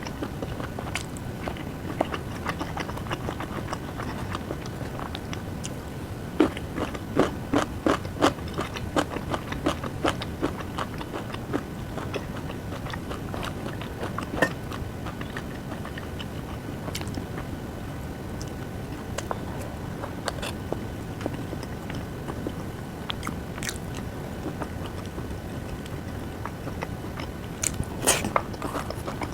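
A person chewing and eating close to the microphone, with scattered sharp clicks; a quick run of clicks comes about a quarter of the way in and another near the end.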